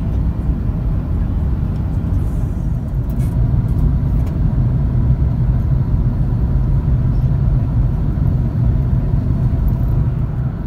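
Steady low drone inside the economy cabin of an Airbus A340-300 in flight: the rumble of its four CFM56 engines and the airflow over the fuselage.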